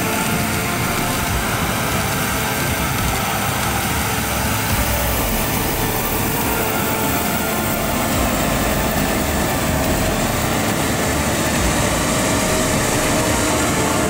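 John Deere X9 1100 combine harvesting corn: a steady drone of its diesel engine and threshing machinery under load, growing a little louder in the second half as the machine draws close.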